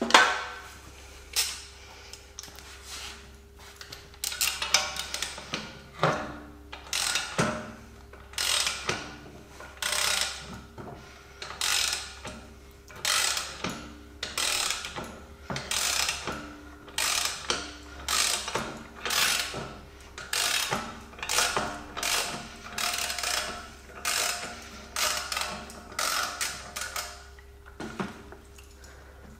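Ratchet wrench clicking through repeated strokes, roughly one a second, as it turns the screw of a ball joint separator to press the ball joint out; a sharp knock right at the start.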